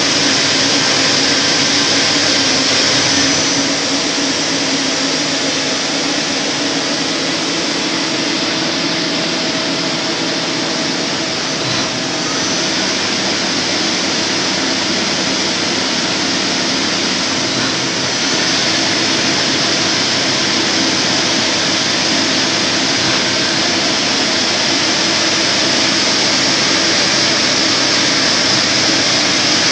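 FTC30 CNC lathe running: a loud, steady whirring hiss that eases slightly a few seconds in, dips briefly near the middle and steps back up later.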